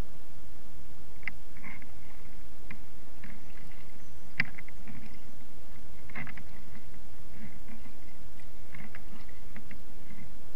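Kayak paddle working the water: scattered small splashes and drips, roughly one a second, over a steady low rumble.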